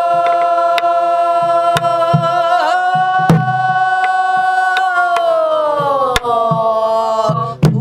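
A woman singing in pansori style, holding one long note that dips slightly in pitch about five seconds in, accompanied by her own buk barrel drum: low thumps on the drumhead and sharp stick strokes scattered under the held note.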